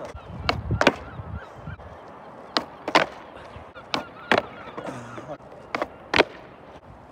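Skateboard deck popping and hitting the asphalt in repeated flip tries: four pairs of sharp wooden clacks, each pair about a third of a second apart, with a low rumble in the first two seconds.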